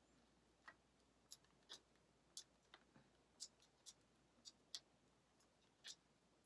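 Near silence with about a dozen faint, irregular soft clicks and ticks as a hand works hair and a hair tie.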